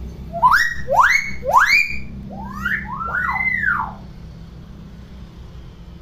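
Hill myna whistling: three quick upward-sweeping whistles, then a falling whistle and two overlapping arched whistles.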